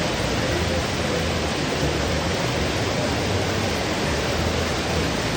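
Steady rushing of a waterfall pouring into a pond.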